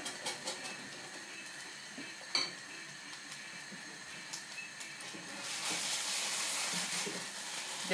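Pancake frying in a pan, with a steady sizzle that grows louder about five and a half seconds in as the pan's glass lid is lifted. Light clicks of kitchen utensils come in the first moments, and a single sharp clink comes about two seconds in.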